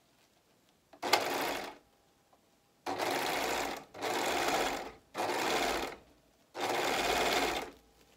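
Four-thread serger (overlock machine) stitching sequined fabric in five short runs of up to about a second each, stopping and starting again as the cloth is guided through. The first run is the shortest and begins with a sharp click.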